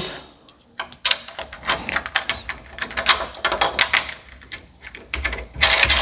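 Irregular clicks and light knocks of metal exercise-bike parts handled during assembly, as the seat-mounting piece is slid onto the seat post and its fastener refitted, with a short scraping slide near the end.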